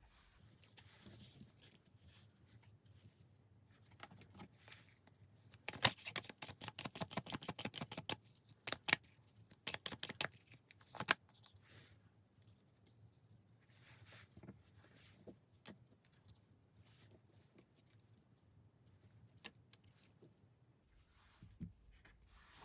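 Tarot cards being shuffled and handled: a fast run of card clicks about six seconds in, a few sharper snaps over the next few seconds, then scattered soft rustles and taps.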